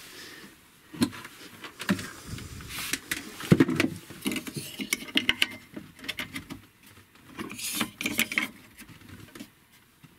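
Irregular clicks, taps and rustling from a hand handling thick battery cables and a plastic terminal boot at a power inverter.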